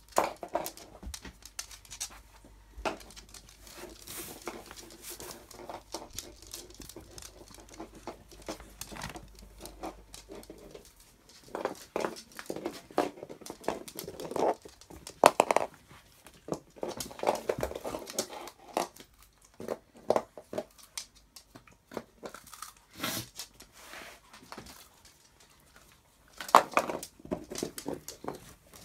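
Dogs crunching and chewing on puffed pig snouts: irregular sharp cracks and crunches, with louder bouts in the middle and again near the end.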